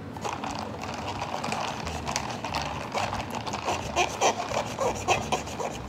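Thick plastic boba straw rubbed up and down through the hole of a plastic dome lid, stirring a cup of iced matcha milk tea: a run of scraping, squeaky strokes that grow louder and more distinct in the second half.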